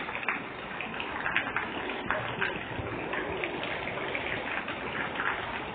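Rain falling on a wet paved street and puddles: a steady hiss with scattered sharper spatters of drops.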